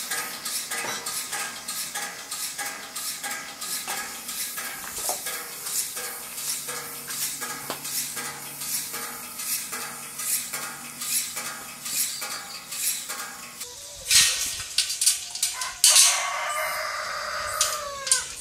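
Homemade steel rice-threshing drum spinning, its metal parts rattling and clinking rapidly over a steady hum. About fourteen seconds in the rattle stops and gives way to a few loud metal knocks. Then comes a scraping squeal of steel, falling slightly in pitch, as a wire mesh screen in a steel frame is handled.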